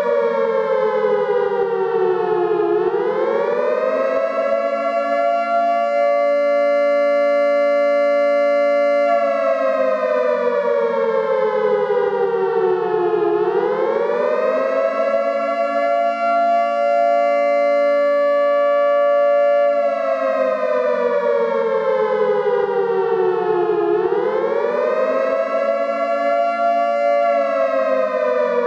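Air raid siren wailing in a repeating cycle, three times over: the pitch climbs quickly, holds high for several seconds, then slowly falls, each cycle taking about ten seconds.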